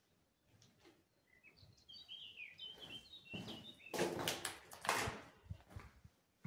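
A small bird chirps for about two seconds, then a series of loud scuffs and thumps follows: footsteps on a gritty concrete floor, loudest about four and five seconds in.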